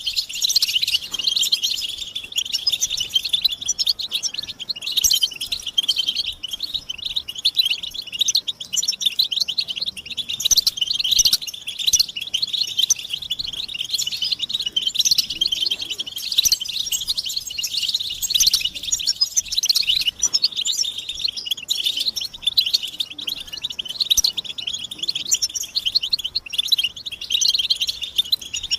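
Several European goldfinches chattering and twittering without a break, many quick, high calls and song phrases overlapping: a group goldfinch chatter of the kind played to stir a silent male into singing.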